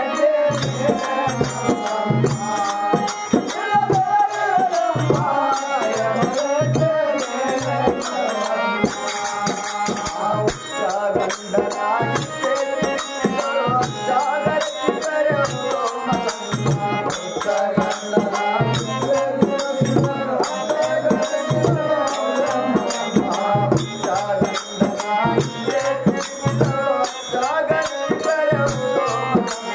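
Kannada devotional bhajan: a singer's voice carries a wavering melody over a steady rhythm of low hand-drum beats and continuous jingling percussion.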